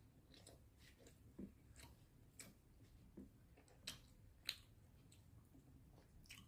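Faint, irregular chewing and wet mouth clicks of someone eating, with two sharper clicks about four seconds in.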